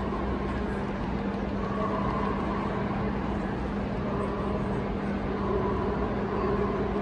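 Steady background noise of a large exhibition hall: a constant low hum under indistinct crowd chatter.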